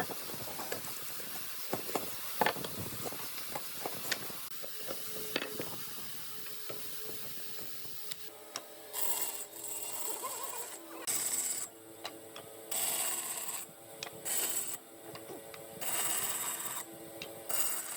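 Scattered knocks and taps, then from about halfway a power tool's motor running in short bursts of about a second each, several times, with a hiss over each burst.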